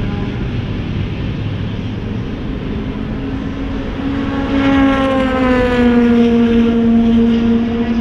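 A race car's engine running out of sight around the circuit. About halfway through it grows louder, its pitch sliding down a little and then holding steady.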